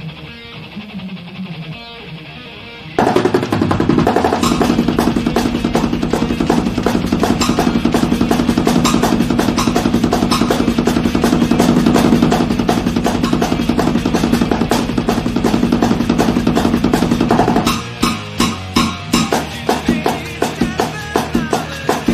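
Drums played over rock music with guitar. It is quieter for the first three seconds, then turns suddenly loud and dense with fast drumming; a few seconds before the end it changes to separate, spaced drum hits.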